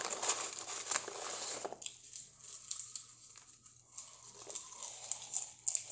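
Crunching and crinkling of microwave popcorn close to the microphone for about two seconds, then only scattered faint crackles.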